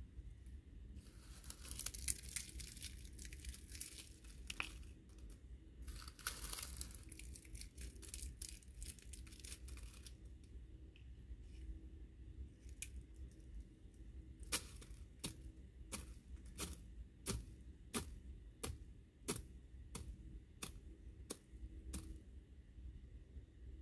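Rustling and crinkling as someone crouched on the ground handles loose debris, then a run of about a dozen sharp clicks at an even pace, a little more than one a second.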